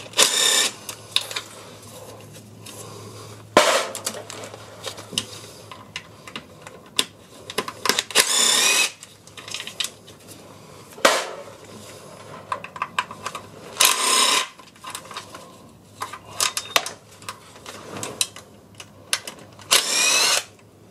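Cordless power driver spinning out the M8 sump bolts in about six short bursts, some rising in pitch as a bolt runs free. Light metallic clicks and clatter come between the bursts.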